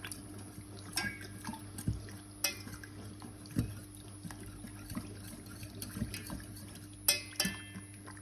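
A spoon stirring a thick, simmering pear, milk and starch pudding in a pot. It gives irregular knocks and scrapes against the pot, about once a second, with a few sharper clinks near the end.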